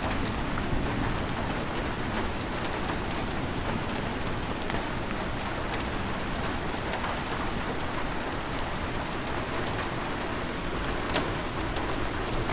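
Steady heavy rain falling on a surface, a continuous hiss with scattered sharper drop hits, one louder about eleven seconds in. The tail of a thunder rumble fades out at the very start.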